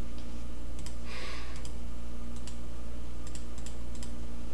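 Scattered light computer mouse clicks, several in quick pairs, over a steady low electrical hum.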